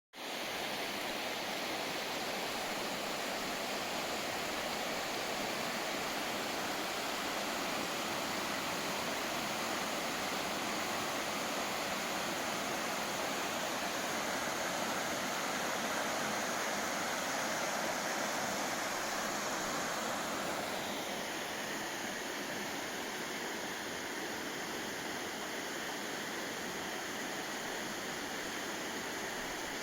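Uono River running fast, a steady rush of flowing water. The rush turns a little softer and duller about two-thirds of the way through.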